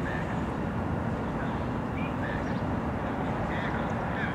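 Diesel-electric freight locomotive running steadily at a standstill, with a few faint high chirps over it.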